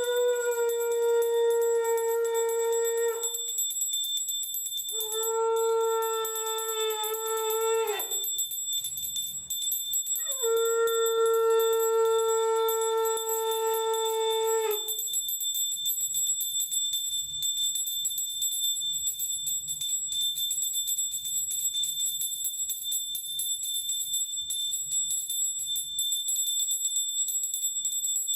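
Conch shell (shankh) blown in three long, steady notes of three to four and a half seconds each, the second bending down in pitch as it ends. A steady high-pitched whine runs underneath and is all that remains for the second half.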